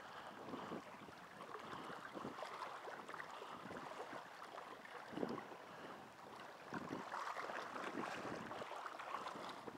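Faint lapping and splashing of choppy river water, with light wind on the microphone and a slightly louder slap of water about five seconds in.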